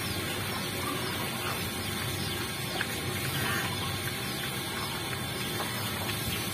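A group of black pigs eating feed off a concrete floor: steady chewing and rooting, with many small clicks throughout.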